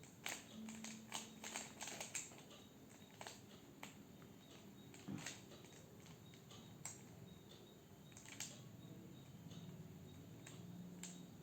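Faint clicking of a 3x3 Rubik's cube's plastic layers being twisted by hand. There is a quick run of turns in the first couple of seconds, then single clicks every second or so.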